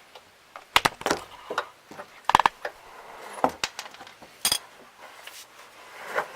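Hand tools and metal parts clinking and knocking under a car during an oil change: a series of sharp separate clicks, one of which rings briefly about two and a half seconds in.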